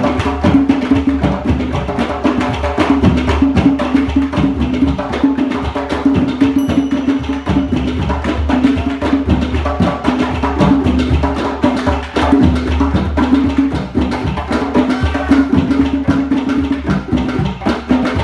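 Music of rapid, continuous hand percussion, dense clicks and strikes, over low pitched notes that change from time to time.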